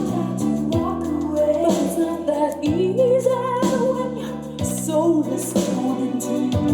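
Music: a slow pop-soul song with a female lead vocal over a band, in a stretch between sung lines.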